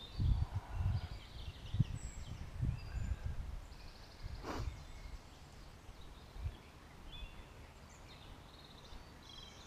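Small birds chirping and singing in short phrases, with a few low thumps in the first three seconds and a single sharp click about halfway through.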